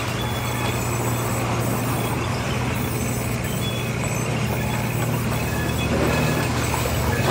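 Large industrial band saw running and resawing timber planks: a steady machine hum under the noise of the cut, growing a little louder about six seconds in.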